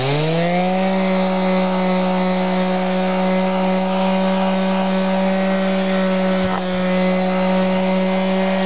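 Bosch SheetLock palm sander starting up, its hum rising in pitch over the first second, then running at a steady pitch as it sands down wood filler that is still slightly soft and tacky. The pitch dips briefly about six and a half seconds in.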